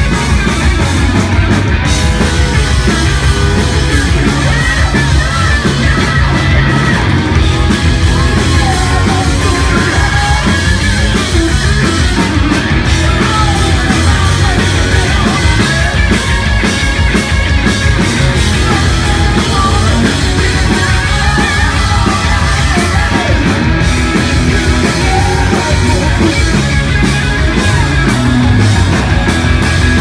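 A rock band playing loud and live: distorted electric guitars, a drum kit, and belted lead vocals, with no break.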